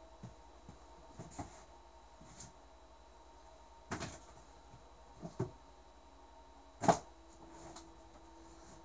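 A few scattered knocks and thumps of objects being handled, the loudest and sharpest about seven seconds in, over a faint steady hum.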